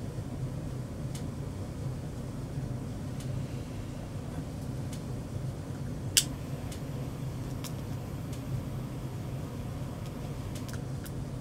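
Steady low hum of room noise, with a few faint clicks and one sharp click about six seconds in from small objects being handled on an altar table.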